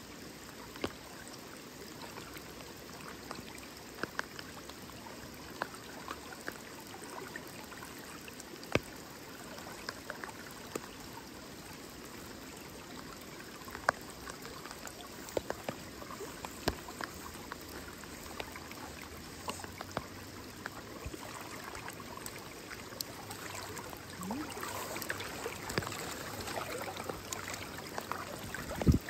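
A river running high, its current a steady rush, with scattered small sharp clicks throughout and a louder, busier patch of water sound in the last few seconds.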